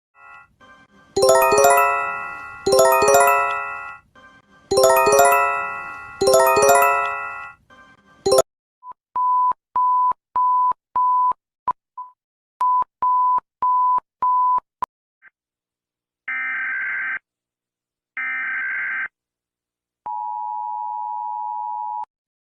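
A string of emergency-alert tones. First come four struck chime notes in two pairs, each dying away. Then a run of short, even beeps at about two a second, then two buzzy data bursts of about a second each. Last comes the steady two-tone EAS attention signal for about two seconds.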